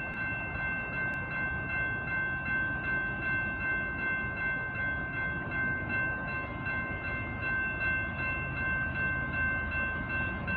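Railroad grade-crossing warning bell ringing in a rapid, steady, even rhythm, the signal that a train is approaching.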